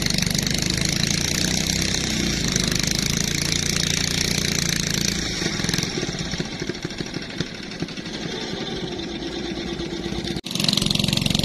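A small engine running steadily. About six seconds in it turns quieter and rougher. Near the end it stops abruptly and at once starts again louder.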